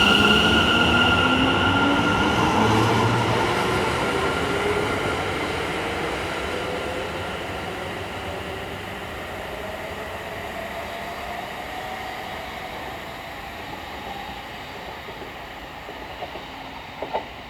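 Electric passenger train accelerating, its traction motor whine rising steadily in pitch while the overall train noise slowly fades. A few small clicks come near the end.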